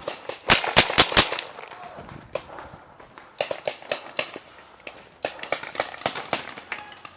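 Paintball markers firing: four loud, sharp shots about a quarter second apart near the start, then two quick runs of fainter shots later on.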